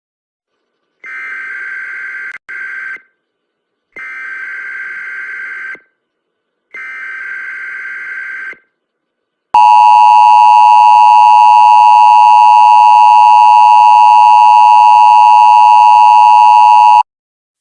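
Emergency Alert System SAME header: three bursts of buzzing digital data tones, each about two seconds long with about a second between them. These are followed by the EAS two-tone attention signal, very loud and steady for about seven seconds, which cuts off sharply.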